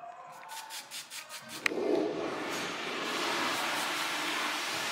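Aerosol spray can used on hair: a run of quick clicks, then a sharp click about two seconds in as the nozzle is pressed and a steady hiss of spray.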